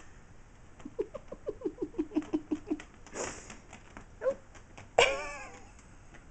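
Kitten clambering on a fabric curtain: small claw ticks and rustles on the cloth, with a quick run of about a dozen short, pitched sounds a second in. About five seconds in a sharp thump as it drops to the floor, followed at once by a falling cry.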